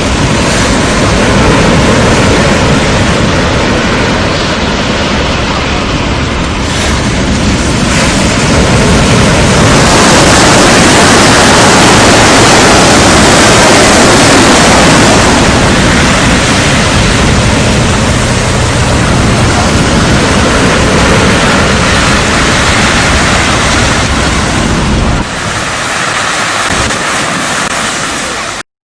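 Strong wind buffeting the microphone over breaking sea surf, loud and steady. The level drops abruptly near the end and the sound then cuts out.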